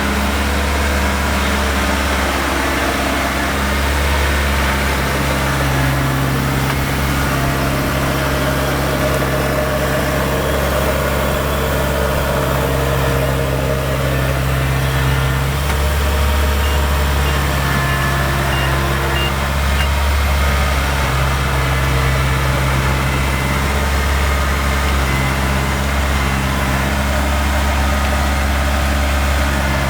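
Diesel engine of a Kubota DC70 rice combine harvester running steadily, its engine note shifting slightly up and down now and then.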